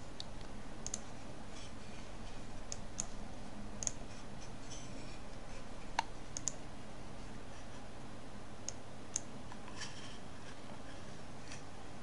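Computer mouse clicking and scrolling: about a dozen short, sharp clicks at irregular spacing over a faint steady low hum.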